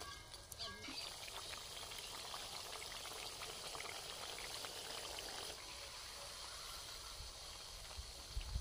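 Whole small crabs deep-frying in oil in a steel wok: a steady bubbling sizzle with fine crackles.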